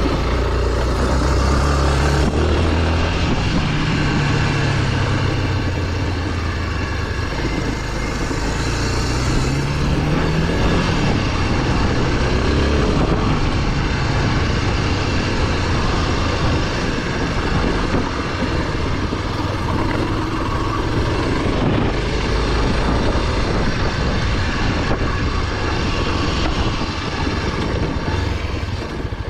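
Honda NX250's single-cylinder four-stroke engine running under way off-road, its pitch rising and falling with the throttle, over a steady rushing noise.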